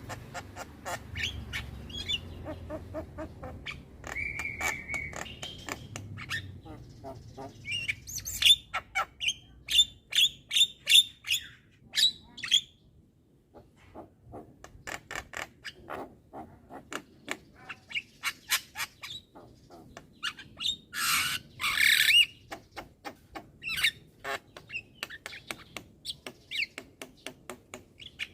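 Young Javan myna chattering: a long run of quick clicking and whistled notes with short pauses, a brief held whistle about four seconds in and a loud harsh screech about 21 seconds in.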